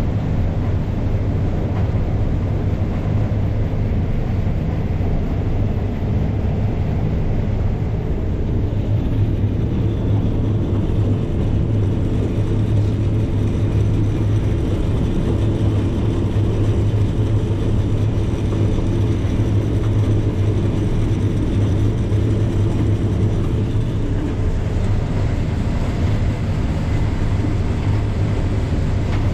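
Case IH 7230 combine running steadily while harvesting corn: an even, deep machine drone with a constant hum and no changes in speed.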